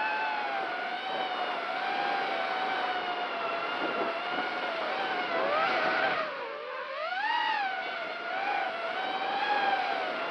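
Walkera F210 racing quadcopter's brushless motors and propellers whining steadily, the pitch rising and falling with the throttle, with a dip about six seconds in followed by a quick rise.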